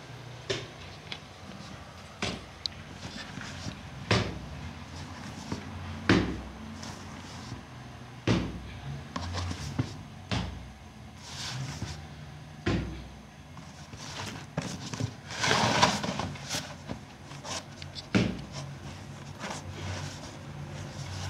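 Dull knocks about every two seconds with rubbing and scraping between them, typical of bread dough being slapped and worked on a wooden board. A longer scraping noise comes about fifteen seconds in, over a faint low hum.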